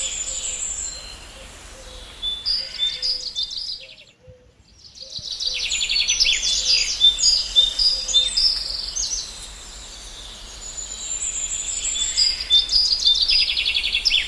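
Birds chirping in chorus: quick repeated chirps and rapid trills. The sound fades out briefly about four seconds in, then returns, and cuts off suddenly at the end.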